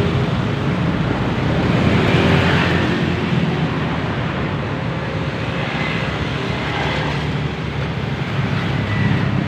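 Roadside traffic noise: passing vehicles' engines running with a steady low hum, slightly loudest about two seconds in.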